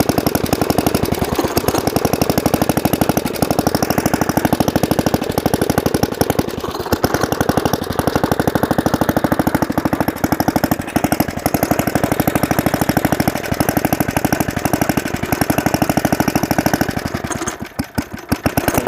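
Briggs & Stratton single-cylinder flathead small engine running at a steady, fast rhythm, then stumbling and dying near the end as it stalls.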